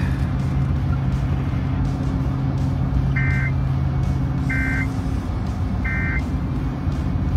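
Steady road and engine noise inside a car cruising at highway speed. Three short electronic beeps sound about a second and a half apart in the middle.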